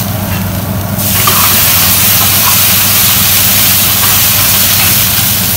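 Capsicum frying in a steel pan over a high gas flame: a loud, steady sizzling hiss that jumps up suddenly about a second in, with a steady low hum beneath it.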